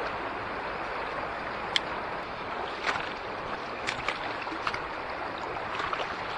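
River water running steadily, with a few short sharp ticks scattered through it.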